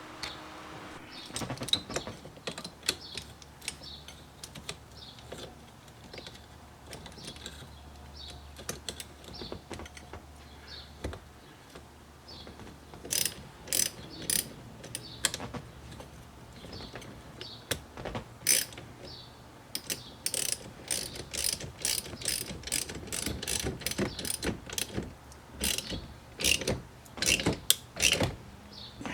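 Steel hand tools working a steering wheel puller on a C3 Corvette steering column: irregular metallic clicks and runs of quick ratcheting clicks as the puller's screw is turned to draw the steering wheel hub off the shaft.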